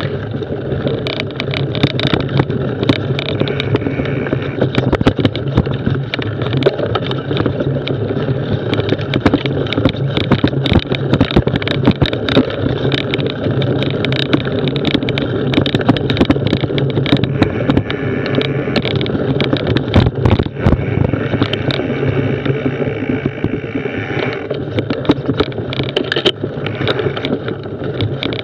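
Mountain bike riding over a rough dirt woodland trail: knobbly tyres rumbling steadily on the ground, with frequent short knocks and rattles from the bike as it goes over bumps.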